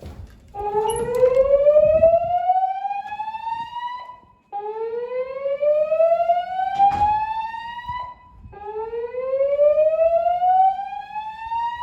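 Gentex fire alarm speakers, driven by a Notifier NFS2-640 DVC voice system, sounding the evacuation 'whoop' tone: three rising sweeps of about three and a half seconds each, with short gaps between them. A sharp click comes about halfway through.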